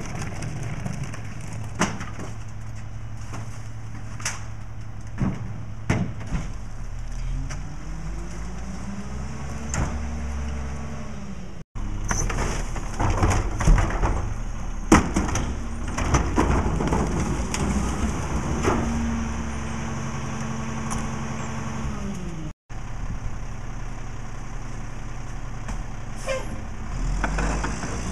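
Rear-loader garbage truck's diesel engine idling, with thuds and bangs as bags are thrown into the hopper and a cart is tipped and knocked empty by the cart tipper. The engine revs up and holds twice as the hydraulic packer cycles, and rises again near the end as the truck pulls away.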